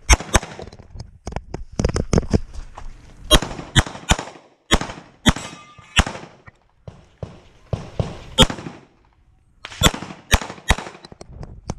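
Rapid semi-automatic pistol fire from the shooter's own handgun, mostly in quick pairs and strings of shots, with a pause of about a second around nine seconds in.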